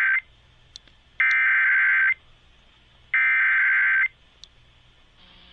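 Emergency Alert System SAME header: buzzing, warbling digital data tones sent in roughly one-second bursts about a second apart. The tail of the first burst is followed by two more. They mark the start of an alert, here a severe thunderstorm warning.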